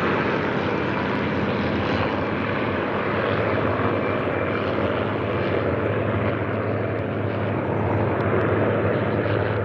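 A large formation of Second World War propeller fighters flying over, their piston engines blending into one steady, dense drone that swells slightly near the end.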